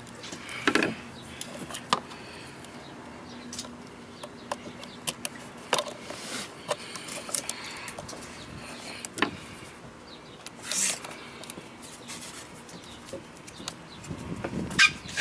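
Scattered light clicks and taps of hand work on a receptacle's wiring, a few seconds apart, over a low steady outdoor background.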